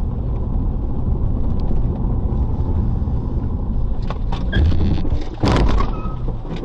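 Steady engine and road rumble heard inside a moving car. About five and a half seconds in comes a loud, sudden crash of impact noise as another car collides with its front.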